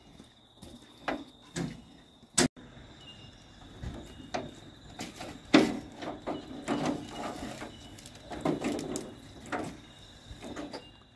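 Scattered clinks and knocks of spanners and brass steam fittings being handled and tightened on a steam locomotive's running board, with a sharp click about two and a half seconds in and the strongest knock a little after halfway.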